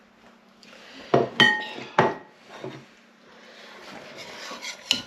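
Ceramic plates and a serving utensil clinking and scraping against a pan of curry while it is dished up: a few sharp clinks, one ringing briefly about a second and a half in, then scraping and a last knock near the end.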